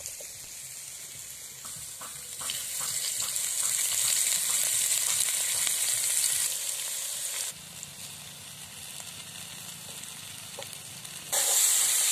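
Vegetable strips and sliced onion sizzling as they fry in oil in a metal kadai, with a few taps and scrapes of a metal spatula early on. The sizzle gets louder about two seconds in, drops abruptly about seven and a half seconds in, and jumps up again near the end.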